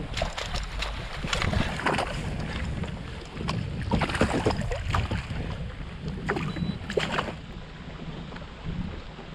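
Wind rumbling on the microphone aboard a kayak, with short splashes and knocks, busiest in the first seven seconds.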